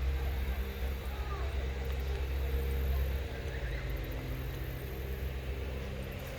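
A steady low engine-like hum with a few faint chirps over it.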